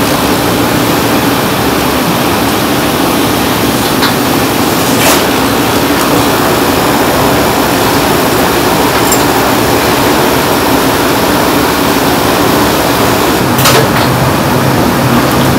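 Electric piston air pump running with a steady mechanical hum, pumping air through a hose under a raw duck's skin to puff it away from the meat. A few faint clicks come through, and near the end a knock is followed by a lower steady hum.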